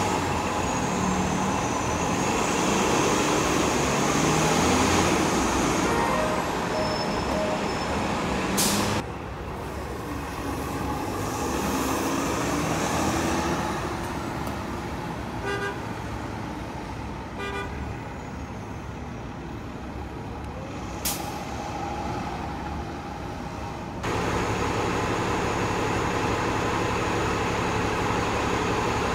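City transit buses running and pulling away, engines running steadily. A short sharp air hiss comes about nine seconds in and another around twenty-one seconds.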